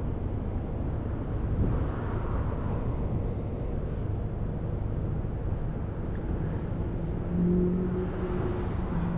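Steady low outdoor rumble of road traffic and wind on the microphone. A vehicle engine hum swells briefly about seven and a half seconds in.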